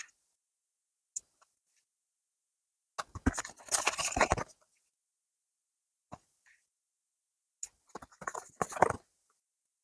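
Tarot cards being handled: two short spells of rustling, clicking card stock, one about three seconds in and another near the end, with a few single light clicks between.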